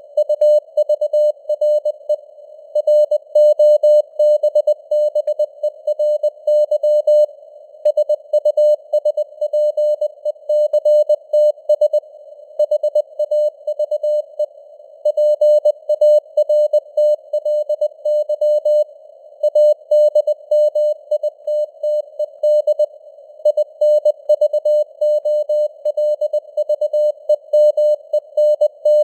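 Morse code (CW) at 20 words per minute: a single mid-pitched tone keyed on and off in dots and dashes without pause. It sits over a narrow hiss of simulated radio-band noise.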